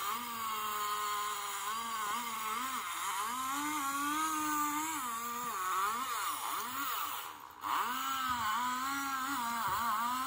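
Engine of a tree-cutting machine running on a television, its pitch rising and falling the whole time, with a short dip about seven and a half seconds in.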